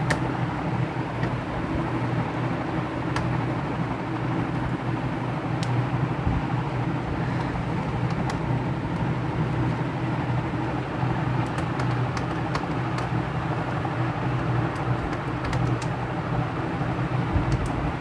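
Steady low hum of background noise, with a few faint scattered clicks from a small screwdriver backing out the screws of a laptop's bottom panel.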